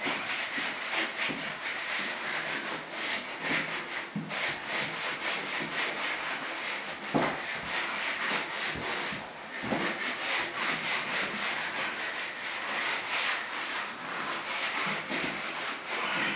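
A rag wetted with Willbond liquid surface preparation rubbed back and forth over a sanded fiberglass door, with quick, repeated wiping strokes. A couple of soft knocks come about 7 and 10 seconds in.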